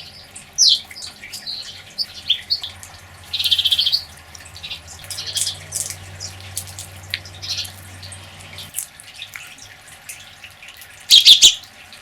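Birds chirping and calling in short high notes, with two loud, harsh rasping calls, one about three and a half seconds in and one near the end.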